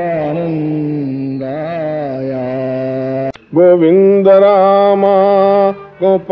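Devotional chanting of the names of Rama: a voice holding long, wavering sung notes. It breaks off briefly with a click about three seconds in, then comes back louder.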